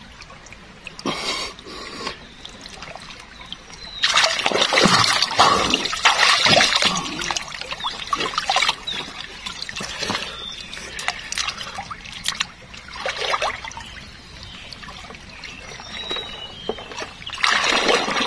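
River water splashing and sloshing around a man wading chest-deep and ducking under, in irregular spells that get louder about four seconds in and again near the end.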